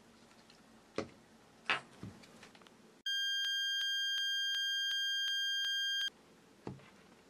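Two sharp taps, then a steady high electronic beep tone with overtones that lasts about three seconds and cuts off abruptly, with faint clicks ticking through it about three times a second. A soft thump follows near the end.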